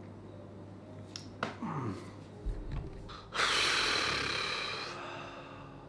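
A man's hoarse, strained voice sliding down in pitch, then a low thump and a long, heavy exhaled sigh. The voice is strained from over-singing.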